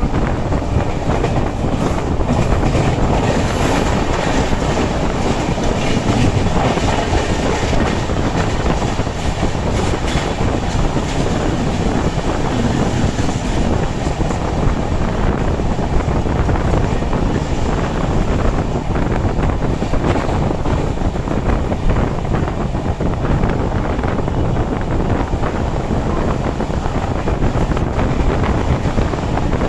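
The Howrah Duronto Express running at high speed, heard from on board: a steady loud rumble with rapid clatter of the wheels over the rails and rushing wind, as an express train goes by on the next track and the train runs straight through a station.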